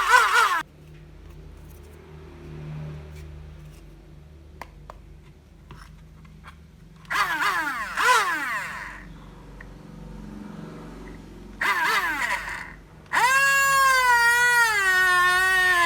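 Small 12 V DC motor of a homemade mini hand drill, run in short bursts whose pitch wobbles rapidly up and down. About thirteen seconds in it runs steadily with a high whine, its pitch dipping and recovering. Between the bursts are quiet stretches with a few light clicks.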